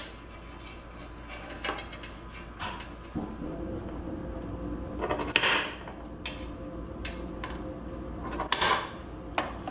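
Scattered light taps and knocks on the compressor mount box as it is pinged from below with a finger, the two loudest about five and eight and a half seconds in, over a steady low hum.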